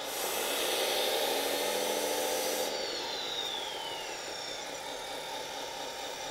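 Electric hydraulic pump of a 1/14-scale RC wheel loader running under load as the lift arm raises a weight of maybe 20 kg, its whine rising in pitch. It cuts off after about two and a half seconds, followed by a falling whine as the pump motor spins down.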